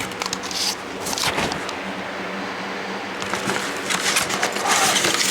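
Handling noises from the new battery and its packaging: irregular scrapes, rustles and a few knocks over a steady low hum.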